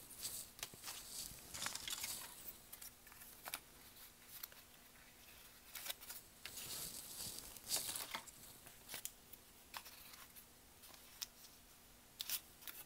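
Paper flower petals rustling and crinkling as they are shaped by curling them around a wooden dowel, in short scratchy spells with quieter pauses between.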